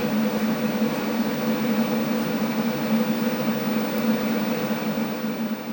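Steady mechanical hum with a low drone and a fainter tone above it over a rushing noise, like a motor-driven fan or ventilation unit running.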